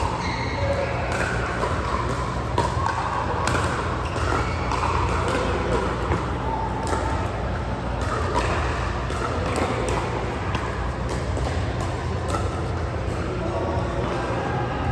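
Indistinct background chatter over a steady low hum, with a few sharp clicks scattered through.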